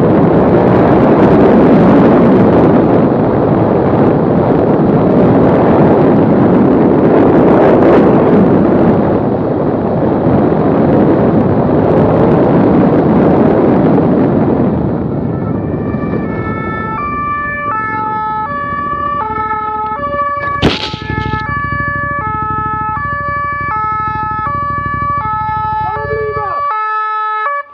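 Loud rushing wind and engine noise, then about fifteen seconds in a two-tone emergency siren comes in, alternating between a high and a low note. There is a sharp click about twenty seconds in, and near the end the low rumble cuts off suddenly while the siren keeps going.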